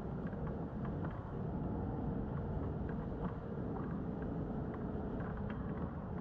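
Steady low rumble of wind on the microphone and water against a kayak hull on open water, with faint scattered clicks as a spinning reel is worked against a hooked fish.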